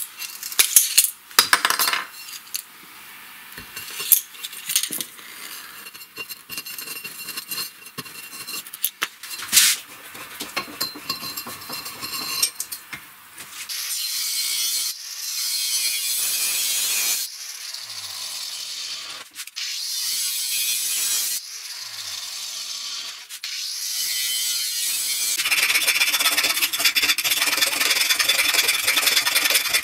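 Scattered scraping and clicking of tools and materials being handled on a workbench. Then, about 13 seconds in, an angle grinder cuts a steel pipe in several stretches. From about 25 seconds in, the grinder works on the rusty pipe, louder and steady.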